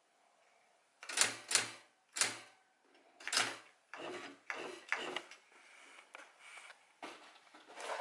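Triumph-Adler SE310 electronic type-wheel typewriter printing characters one at a time: sharp, irregularly spaced clacks of the print hammer, starting about a second in, with a quicker run of strikes around four to five seconds.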